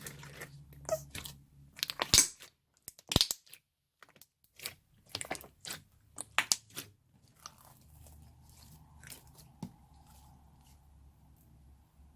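Clear slime being squeezed and stretched by hand, making a run of irregular sharp pops and crackles as trapped air bursts. The loudest come about two and three seconds in, and they thin out after about seven seconds.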